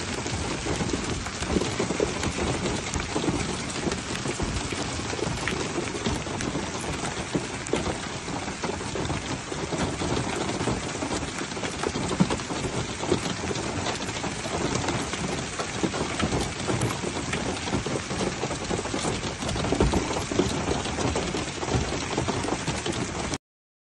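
Hail pelting paved ground, a dense steady patter of countless small stone impacts mixed with rain, cutting off abruptly just before the end.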